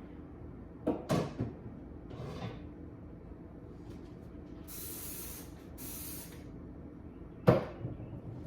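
Kitchen clatter while a pan is handled off to the side: a few knocks about a second in, then two short hissing sprays of about a second each, and a sharp knock near the end, the loudest sound.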